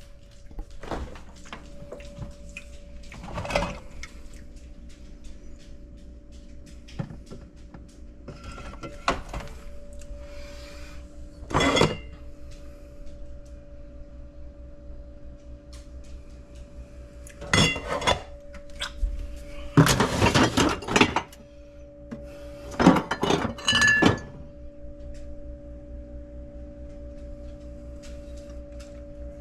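Intermittent clinks and knocks of glassware and dishes being handled, coming louder and closer together in the second half, over a steady low hum.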